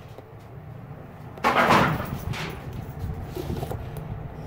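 A loud clunk with a brief scrape about a second and a half in, fading over about a second, then a few lighter knocks, as the camera is moved and set in a new position. A steady low shop hum runs underneath.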